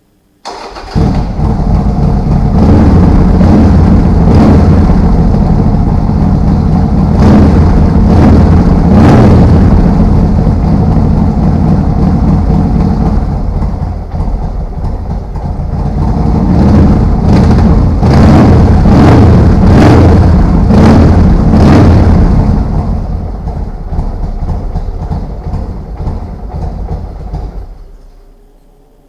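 Harley-Davidson Sportster XL1200S's air-cooled V-twin engine starting up after its oil change and running loud, with repeated throttle blips. It settles to a lower, quieter run for its last several seconds, then shuts off near the end.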